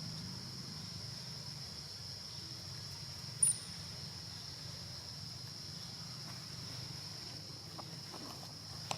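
Steady high-pitched drone of insects, with one brief, sharp, very high chirp about three and a half seconds in.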